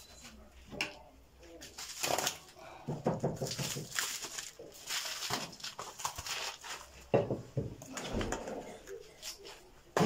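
A plastic-wrapped tray of frozen meat being slit open with a knife and handled over basins of thawing water: irregular plastic rustling and crinkling with a sharp knock about seven seconds in. Pigeons coo in the background.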